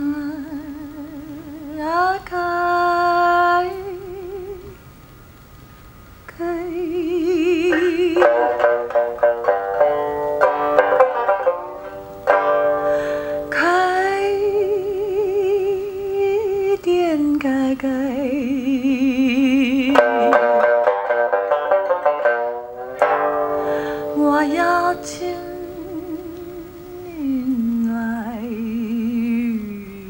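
A woman singing long, sliding notes with wide vibrato, accompanied by a plucked sanxian, acoustic guitar and double bass in a small jazz trio. The voice drops out briefly about five seconds in and again just past twenty seconds.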